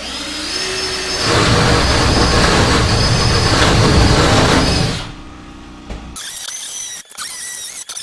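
Power drill with a spade bit boring through wall-framing lumber. It spins up over the first second, runs loud and steady with a high whine, then stops about five seconds in. After it, a different sound with wavering high tones.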